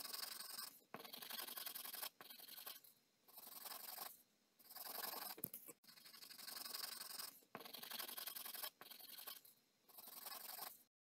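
Graphite pencil scratching on paper as letters are drawn, in a string of strokes lasting about half a second to a second and a half each, separated by brief pauses.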